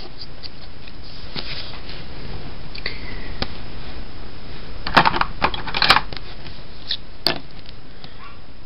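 Strips of patterned paper being handled and laid down on cardstock: scattered light rustles and sharp taps, most of them about five to six seconds in, over a steady hiss.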